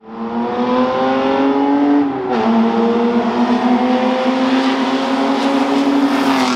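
Honda J30A1 V6 engine in an off-road buggy, accelerating hard: its note climbs, drops at an upshift a little over two seconds in, then climbs again through the next gear.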